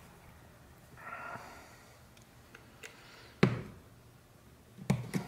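Sharp clicks of fine metal tweezers slipping against the mount knob of a Rode NT-USB Mini microphone as it is pried at: one loud click about two-thirds of the way through and two more near the end. A short soft hiss, like a breath, comes about a second in.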